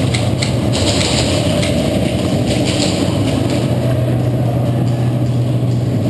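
A steady low mechanical hum that holds unchanged throughout, with a few short clicks and rustles in the first second.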